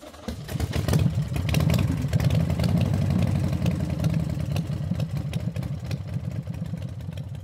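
Kymco Xciting scooter engine running with a fast, even pulsing. It comes up about half a second in and eases off slightly near the end.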